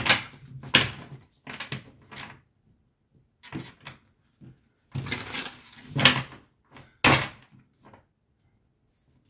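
Tarot cards being handled and laid out on a table: a scattered series of short rustles and taps, with quiet gaps between them.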